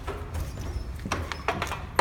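Glass entrance door being handled: a few light clicks and knocks, then a sharp knock near the end as a hand meets the door.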